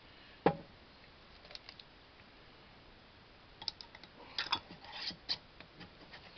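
Small glass jar handled on a wooden cutting board: one sharp knock about half a second in, then scattered light clicks and rubbing as the jar is wiped with a cloth.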